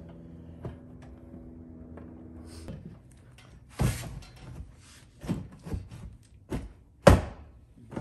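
A few sharp thunks as an access door is pressed and knocked into its opening in a bus's riveted metal side, the loudest a little after seven seconds in. Before that, a steady low hum stops about three seconds in.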